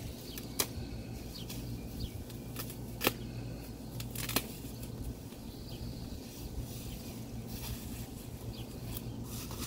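Plastic bubble-wrap packaging rustling and crinkling as it is pulled off a flat package by hand, with a few sharper crackles, the loudest about three seconds in.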